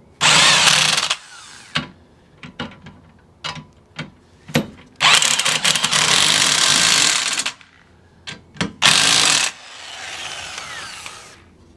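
Cordless power drill with a socket running in short bursts to drive home the bolts holding a motorcycle dolly frame onto a car's tow hitch. There is a burst of about a second at the start, a longer one of about two and a half seconds midway and a short one near nine seconds, then a quieter run that fades near the end. Metal clicks and knocks come between the bursts.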